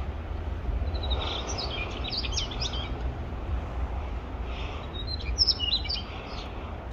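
Male Daurian redstart singing: two short phrases of quick, high twittering notes, the first about a second in and the second about four and a half seconds in, over a steady low rumble.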